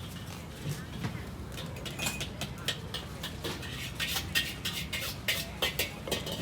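Metal utensils clinking and clattering against pans and dishes in a street-food kitchen: a quick, irregular run of sharp knocks, some ringing briefly, over a steady low hum.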